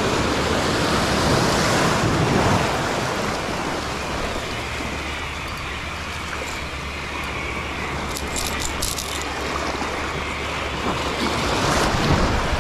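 Sea surf breaking and washing over rocks, a steady rushing noise, with a brief run of faint light clicks about eight seconds in.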